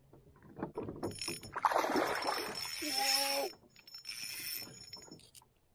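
Water splashing and sloshing at a canoe in two rushes: a longer one starting about a second and a half in, with a short voiced sound in its middle, and a brief one about four seconds in.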